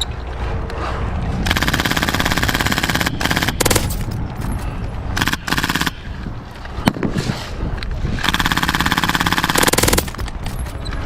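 Airsoft guns firing full-auto in rapid bursts: two long bursts of about a second and a half to two seconds each, one near the start and one near the end, with a few short bursts between.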